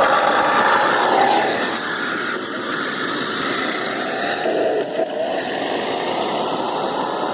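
Remote-control model car driving on a road: its motor pitch rises and falls over a steady rush of road and tyre noise.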